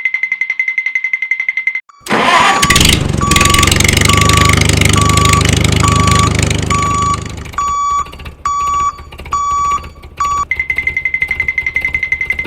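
The music cuts out about two seconds in and an engine sound starts suddenly and runs loudly for about five seconds, with a beeping tone repeating about twice a second over it. Then come four longer beeps with short pauses before the music returns.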